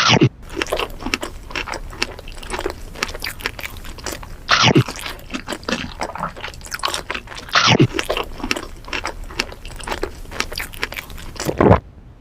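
A duck eating, its bill working through crunchy food in quick clicking and crackling bites, with a louder crunch every three to four seconds.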